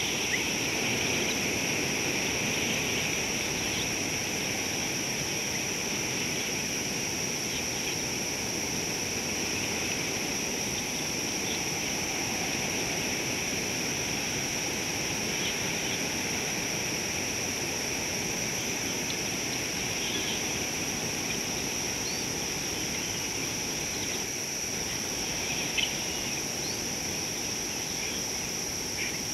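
Natural bush ambience: a steady high-pitched insect chorus over a constant low rushing hiss, with a few faint short chirps scattered through.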